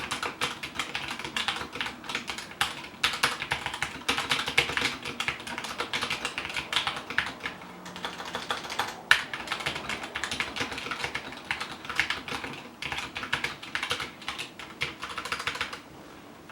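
Steady fast typing on a 60% mechanical keyboard with tactile Gateron Brown switches: a dense run of key clacks, with a short lull about halfway, stopping just before the end.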